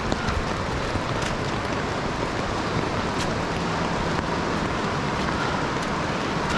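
Youghiogheny River rushing: a steady, unbroken noise of flowing water.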